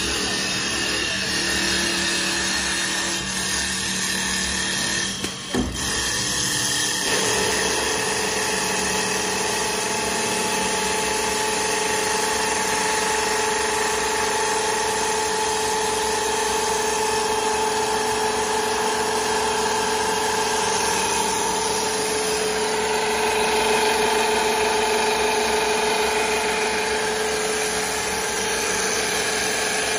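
CNC wood lathe running, its motor-driven sanding wheel grinding against a spinning wooden spindle: a steady machine drone. The level dips briefly about five seconds in, and from about seven seconds in a steady motor whine runs over the drone.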